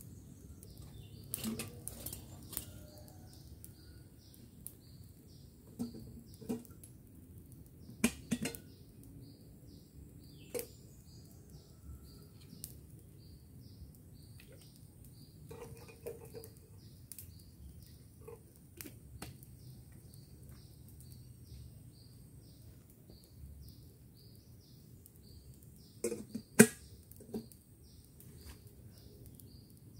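Scattered sharp snaps and knocks around a wood campfire, the loudest about eight seconds in and near the end, over a faint high chirp repeating about twice a second.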